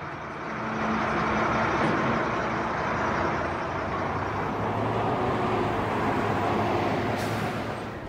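A road vehicle driving, with steady engine and road noise.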